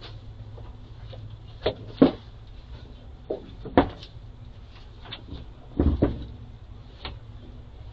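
A black vulture moving on a coop floor littered with dry straw and debris: irregular knocks, clicks and scrapes as it steps and shuffles, the loudest about two seconds in, near four seconds and around six seconds, over a steady low hum.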